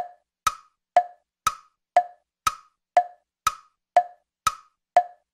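A steady tick-tock of sharp, wood-block-like clicks, two a second, alternating a lower and a higher tone with clean gaps between.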